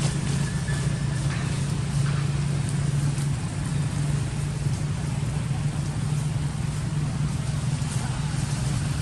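An engine running steadily nearby, a low, even drone that neither rises nor falls.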